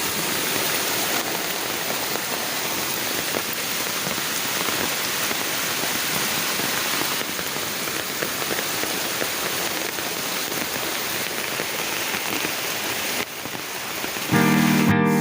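Heavy rain pouring steadily, an even hiss. About a second before the end, plucked guitar music starts and drowns it out.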